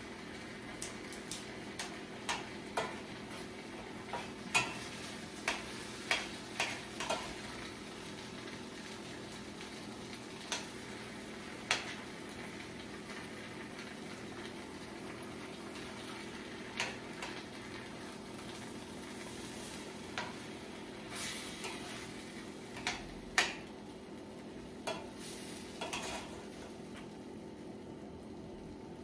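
A utensil stirring gravy in a pan, with sharp knocks and scrapes against the pan at irregular moments, over a steady sizzle of the gravy and hamburger steak patties simmering as flour thickens it.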